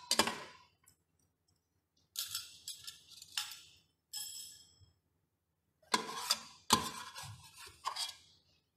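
A metal ladle clinking and scraping against a stainless steel pressure-cooker pot as braised pork ribs are scooped out, in several short groups of ringing clinks with pauses between.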